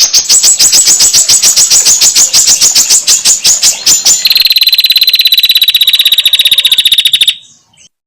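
Female prinia (prenjak) calling a loud, rapid chattering trill of short high notes, about ten a second. About four seconds in it switches to a faster, slightly lower trill, which cuts off abruptly about seven seconds in.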